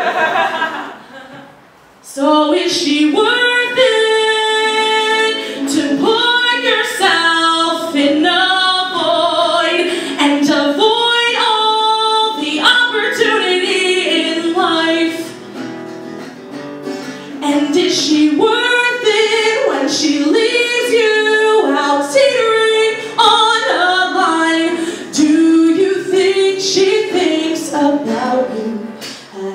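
A woman singing solo in a slow melody of long held notes with vibrato. She starts after a pause of about two seconds and breaks briefly about halfway through.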